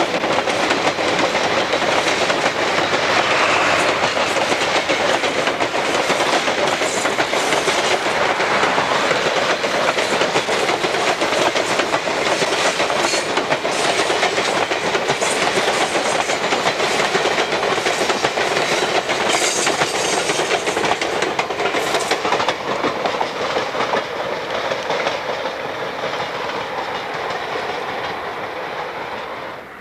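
Steel wheels of a long string of passenger coaches rolling steadily past on the rails close by. The sound fades away over the last few seconds as the train recedes.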